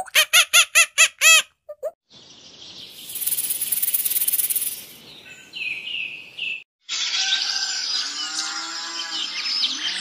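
A run of edited animal-sound clips. Quick high calls repeat about six times a second for the first second or so. Then comes a hissing buzz, loudest between about three and five seconds in, and from about seven seconds in a busy chorus of overlapping chirps and calls.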